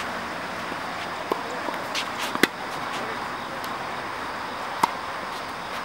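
Tennis ball being hit with rackets and bouncing on the court: a handful of sharp, irregularly spaced pocks, the loudest about two and a half seconds in and near the end, over a steady background hiss.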